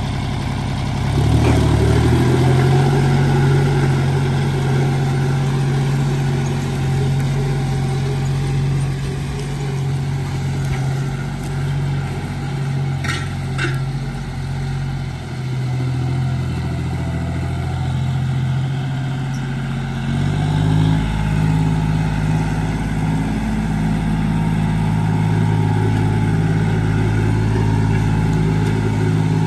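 John Deere tractor's diesel engine working under load while pulling a 22-disc harrow, throttling up about a second in and then running as a steady drone. About two-thirds of the way through the engine note shifts a little higher. There are a couple of brief clicks near the middle.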